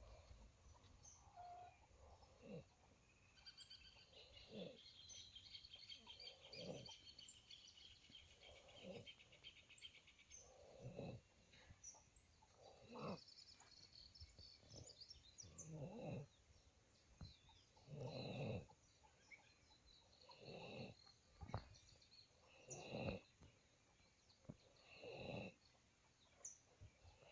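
A calf snoring, one rasping breath about every two seconds.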